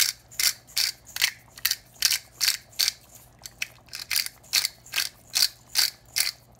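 Hand-twisted pepper mill grinding peppercorns over a pot, a steady run of short rasping ratchet strokes at about three a second, stopping near the end.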